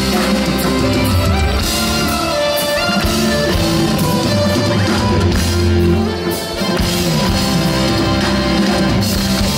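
Live rock band playing, with guitar and drums over a steady bass line.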